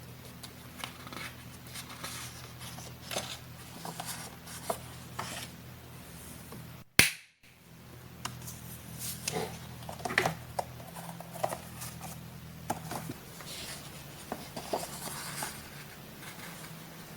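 Close-up paper-crafting sounds: paper rustling and crinkling with snips of scissors and light taps, irregular and scattered, over a faint steady low hum. One sharp, loud click about seven seconds in.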